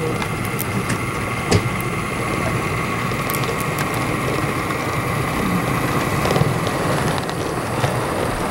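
HO-scale model freight train rolling past: a steady mechanical whir from the locomotive's motor and gears and the wheels running on the track. Scattered sharp clicks come from the rolling stock.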